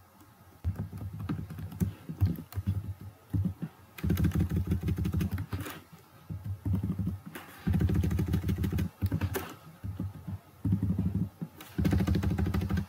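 Computer keyboard typing in bursts of rapid keystrokes with short pauses between, as words are deleted and retyped.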